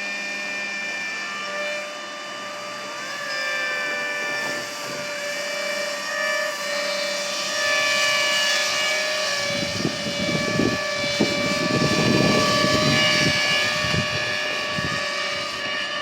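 Electric motors and propellers of a 3D-printed RC hovercraft whining at a high pitch, several tones shifting up and down with the throttle. From about ten seconds in, a rougher low rumbling noise joins underneath.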